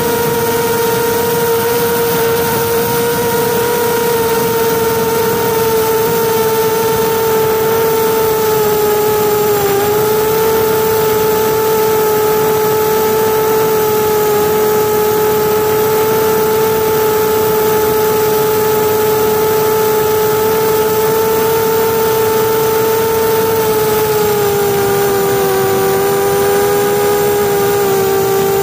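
Drone's electric motors and propellers running steadily close to the onboard camera in flight: one strong, even hum with overtones. About 24 seconds in, the pitch drops slightly and splits into two close tones as the motors change speed.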